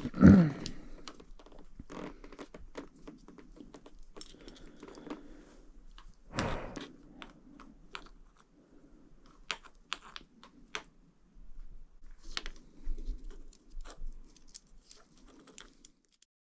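Scattered light clicks, taps and knocks of hand tools and small parts being handled, irregular and without a steady rhythm. A louder short sound with a falling pitch comes right at the start, and another louder knock about six and a half seconds in.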